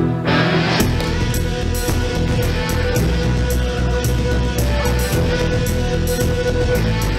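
Instrumental music: a violin holding and moving between notes, joined just under a second in by a steady percussion beat with a heavy low end.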